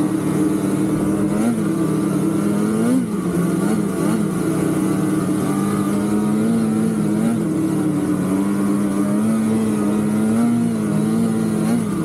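Polaris 9R snowmobile's two-stroke twin engine running steadily at trail speed, heard from the rider's seat. Its pitch rises and falls a little several times as the throttle is eased on and off.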